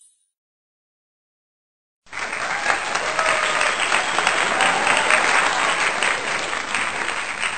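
Crowd applause, likely a stock sound effect, starting suddenly about two seconds in after silence and then steady clapping.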